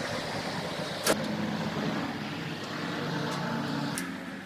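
A steady low mechanical hum, with a sharp click about a second in and another near the end.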